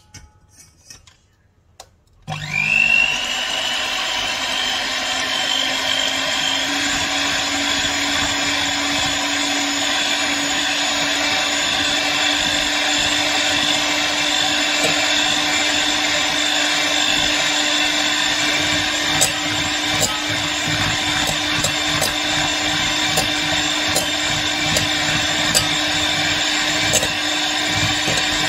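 Electric hand mixer switching on about two seconds in, its motor whine rising quickly to speed, then running steadily with its wire beaters whipping egg whites in a stainless steel bowl. Occasional light ticks come in the second half.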